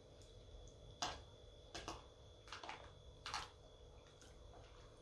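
Forks clicking and scraping against plastic containers while noodles are eaten: about half a dozen faint, short clicks spread through the middle few seconds over quiet room tone.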